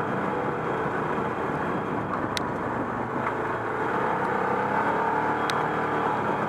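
ATV engine running steadily under way on a dirt trail. Two sharp clicks stand out, one about a third of the way in and another near the end.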